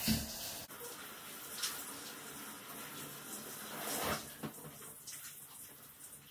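Water spraying from a handheld shower head over a Shetland sheepdog's wet, lathered coat and splashing in a shower stall, with a louder splash about four seconds in.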